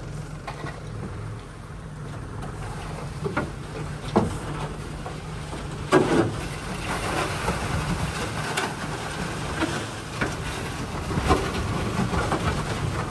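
A small hunting boat's motor running at low speed, a steady low hum, with about half a dozen sharp knocks scattered through it.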